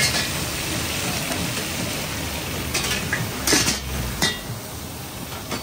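Food frying in hot oil with a steady sizzle, and metal pans and utensils clinking a few times, most clearly past the middle.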